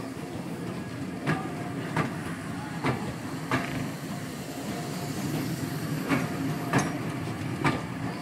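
Wheels of passing GWR chocolate-and-cream passenger coaches rolling by with a steady rumble. Sharp clicks come in pairs, about four pairs, as the wheels pass over the track.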